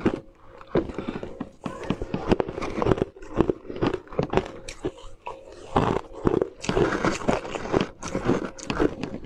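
Close-up crunching and biting of frozen ice pieces, a rapid run of sharp cracks and crackles as they break between the teeth.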